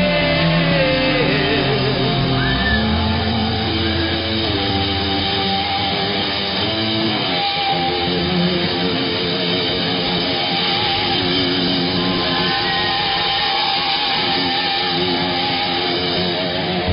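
Rock band playing live, an instrumental passage with electric guitar lines carrying the melody and no vocals.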